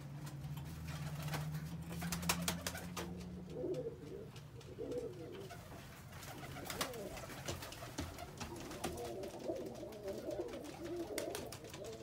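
Domestic pigeons cooing in low, warbling calls, mostly from a few seconds in, with scattered sharp clicks and wing flaps as birds fly and land around the loft.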